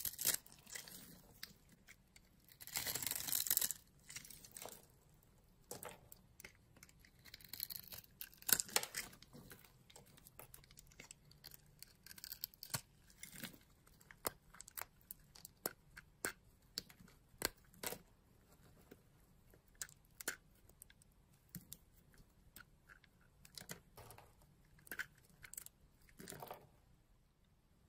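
Bar soap scored into small cubes crumbling off under a blade in a few dense crackling bursts, then a long run of short, sharp snaps and crunches at irregular spacing as pieces of soap are broken between the fingers.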